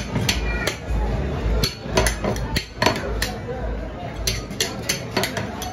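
Two flat steel spatulas chopping and scraping ice cream mix on a chilled slab: irregular sharp metal taps and clacks, several a second.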